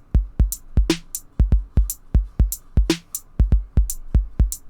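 Programmed drum-machine beat from beat-making software: deep kick-drum thumps, several a second, with sharp high percussion ticks in between.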